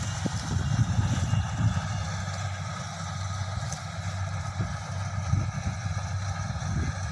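Diesel engine of a crawler rice combine harvester running steadily, a continuous engine hum.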